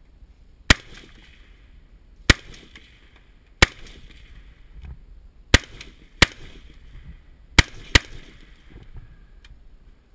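H&K MR223 semi-automatic .223 rifle firing seven shots at an unhurried, uneven pace, the last two in quick succession, each crack followed by a brief echo.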